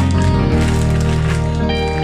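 Instrumental background music with held notes that change about half a second in and again near the end.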